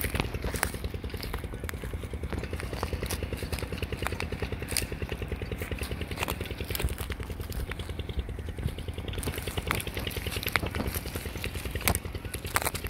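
An engine running steadily with an even low pulse and no revving, with scattered sharp clicks over it.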